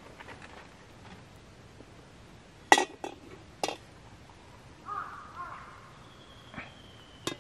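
Sharp clinks and knocks of camp cookware or gear being handled, four in all, with a short, rougher mid-pitched sound between them.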